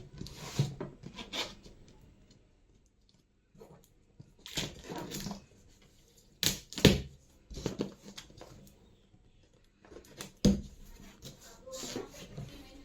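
Printer packaging being handled during unboxing: intermittent rustling and scraping of cardboard and plastic, a longer rustle about five seconds in, and sharp knocks around seven and ten seconds in.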